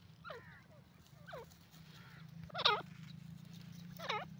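Grey francolin giving short calls, four notes each sweeping down in pitch, spaced about a second or more apart, the third the loudest, over a low steady hum.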